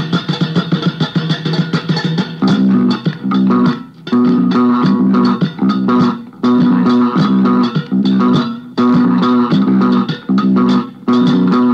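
Indie rock music: electric guitar and bass guitar playing a choppy riff, broken by short stops every couple of seconds.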